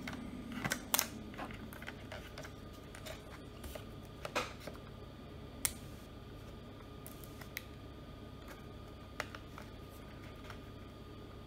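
Small clicks and taps of hands handling a laptop's removed 2.5-inch drive and its mounting parts, scattered irregularly, the sharpest about a second in and near the middle, over a faint steady background hum.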